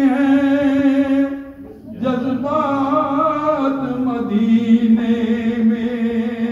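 A man's solo voice reciting a naat, unaccompanied, in long drawn-out held notes. One note breaks off about a second and a half in; a new phrase then steps down about four seconds in to a long, steady, lower note.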